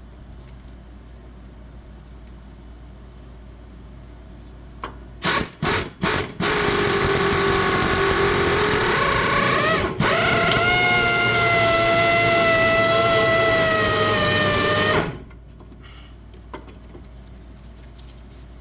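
Power tool with a 14 mm socket working on a stubborn, seized control-arm bolt. It gives a few short bursts, then runs continuously for about nine seconds. Its whine climbs in pitch partway through, and it then stops.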